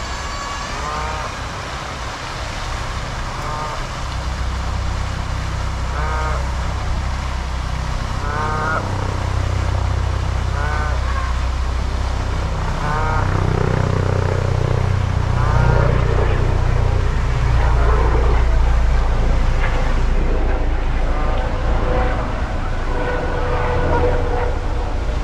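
Canada geese honking: one call about every two seconds at first, then more calls overlapping later, over a steady low rumble.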